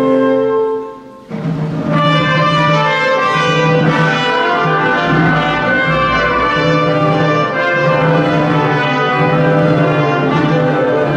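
Brass fanfare played live by a wind ensemble's trumpets and lower brass. A held chord cuts off about a second in, and after a brief break the brass comes back in with sustained chords over a repeated low note.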